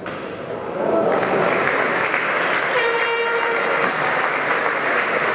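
Audience applauding in a large hall, the clapping swelling about a second in and holding steady, with one short held toot near the middle.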